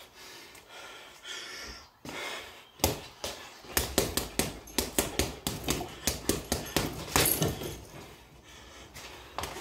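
Gloved hook punches landing on a chain-hung RDX punching bag: a rapid run of sharp thuds, about three a second, in the middle of the stretch, thinning out near the end.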